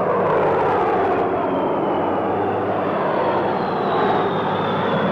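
Boeing B-17 bomber's four radial piston engines running at takeoff power as the plane lifts off and passes, a loud steady drone with a faint high tone that slowly falls in pitch.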